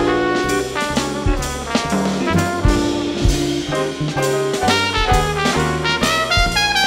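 Trumpet playing a solo of quick running notes over a jazz band, with upright bass and drums underneath.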